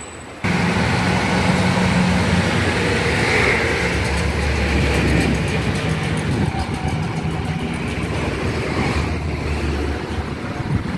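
Road traffic and a motor vehicle engine running steadily with a low hum, starting abruptly about half a second in.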